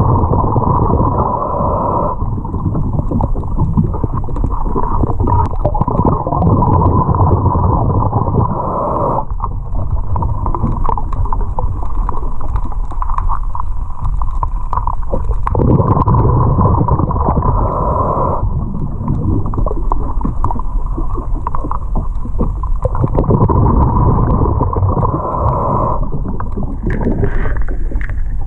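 A diver breathing underwater, heard through the submerged camera: four long breaths, each a rushing whoosh, with bubbling and a low rumble in between.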